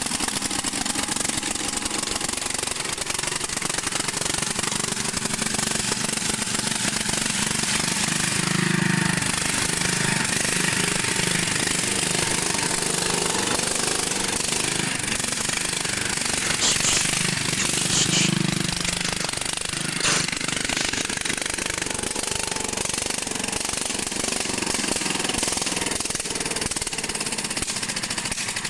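Small garden tractor engine running steadily as the tractor is driven around, with the engine note swelling briefly about eight and eighteen seconds in.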